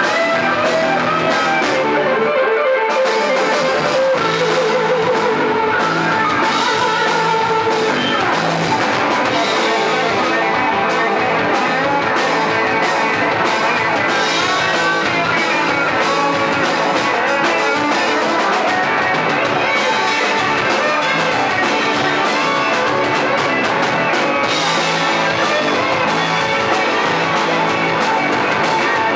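Live rock band playing hard rock: electric guitars over a drum kit, loud and unbroken.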